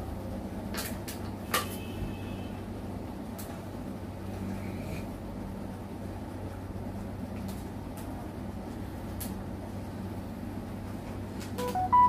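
Steady low hum with a few faint clicks, then near the end a short run of electronic beeps at several pitches from a Samsung Galaxy S10 5G smartphone's speaker as its setup finishes and the home screen comes up.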